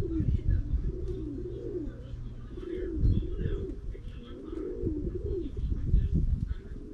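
Several feral pigeons cooing, their low rising-and-falling coos overlapping one another without a break. A low steady hum underlies the first couple of seconds and then stops.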